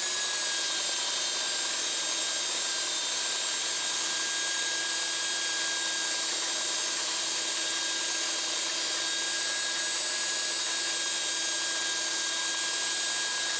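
Makita 9404 belt sander running at a constant speed while a strip of wood is held against its moving belt: a steady whine with no change in pitch or level.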